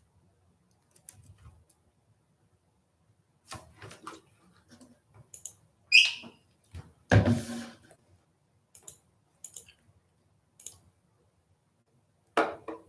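Scattered light clicks from computer keyboard and mouse use, with a short high squeak about six seconds in and a rush of noise lasting under a second right after it.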